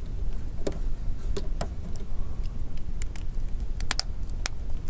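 Plastic back frame of a Motorola Atrix HD snapping onto the phone: a series of sharp, irregularly spaced clicks as its clips catch, several close together near the end.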